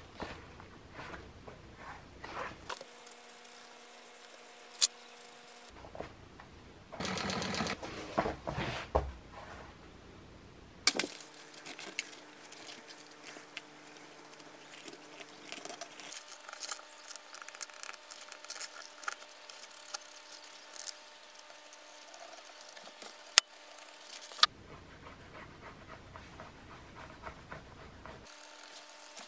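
Leather seat covers being handled and marked on a cutting mat: rustling, rubbing and scratching, with a few sharp clicks. The ticks and scrapes break off and change at several points.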